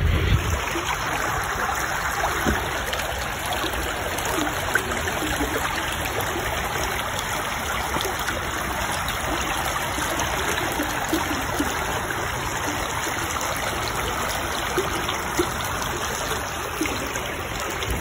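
Shallow woodland creek running, a steady, even sound of flowing water.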